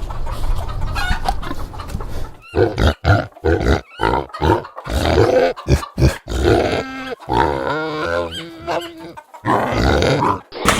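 Pigs grunting in a quick run of short grunts, with a few longer pitched squeals in the middle.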